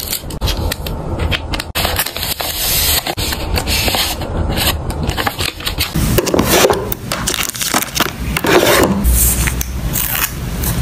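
Close-up packing sounds: plastic card sleeves and packaging being handled on a desk, with crinkling, scraping and small taps. The handling noises change about six seconds in.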